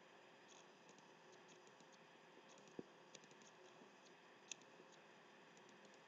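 Near silence: room tone with a few faint computer mouse clicks, the clearest about three seconds in and again about four and a half seconds in.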